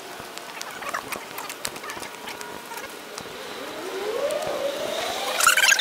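Wheelchair being pushed over pavement, with steps and many small clicks from the wheels and ground. A rising whine builds past the middle, and a short, loud, high squeal comes just before the end.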